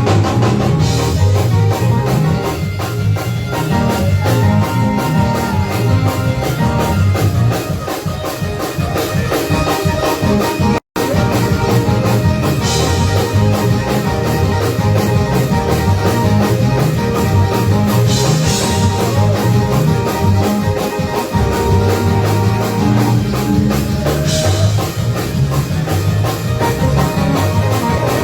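Live church band playing an upbeat gospel praise break, drum kit and guitar, with cymbal splashes now and then. The sound drops out completely for an instant about eleven seconds in.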